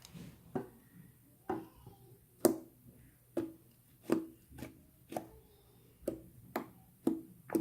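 Homemade fluffy glitter slime being poked and pressed by hand, giving about a dozen short, sharp pops roughly one to two a second.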